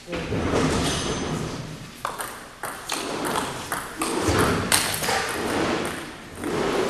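Table tennis ball clicking back and forth off the paddles and the table during a rally.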